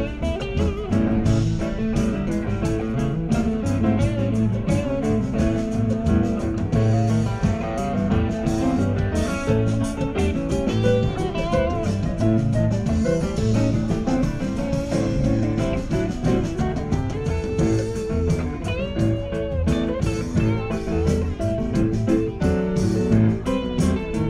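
Live rock band playing an instrumental passage: guitar lines with bent, wavering notes over bass and drums.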